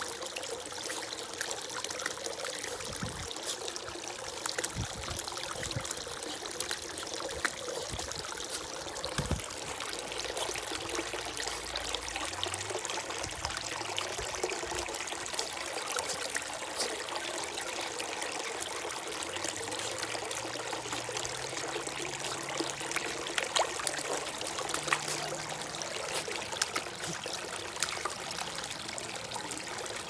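Water fountain trickling and pouring steadily over its tiers into the basin, with occasional sharper splashes from a puppy pawing and nosing in the water.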